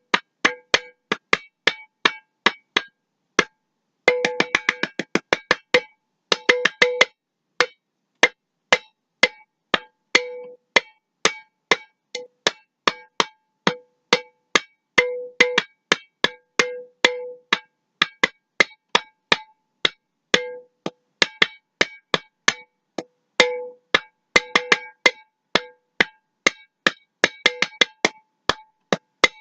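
Glass mason jar tapped over and over in an uneven, drum-like rhythm, each tap ringing briefly with the jar's own pitch, with quick flurries of taps a few times.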